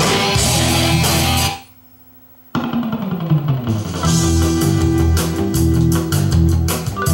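Music with guitar and drums playing from a CD on a Sherwood CDC-5030 five-disc changer. About a second and a half in, the track fades out; after a second's quiet gap the next track starts and plays on.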